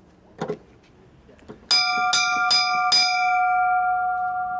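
The chrome-plated fire bell on a 1937 Leyland turntable ladder fire engine is struck four times in quick succession, about 0.4 s apart, starting a little before halfway. The bell then rings on with a clear, steady, several-toned ring that slowly fades.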